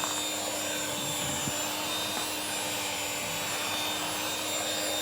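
A small electric motor whirring at a steady pitch, loud and even, with a constant low hum running under the noise.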